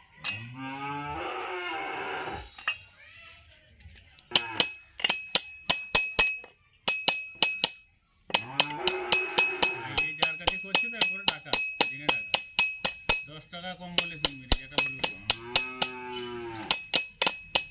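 Ball-peen hammer tapping a ball bearing down onto a tractor PTO shaft, about three ringing metal strikes a second, starting a few seconds in with a short pause midway. A cow moos three times in the background, long calls that rise and fall.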